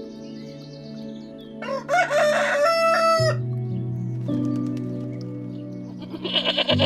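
A rooster crowing once, a long held call about two seconds in, over steady background music, with faint small-bird chirps and a short burst of rapid calls near the end.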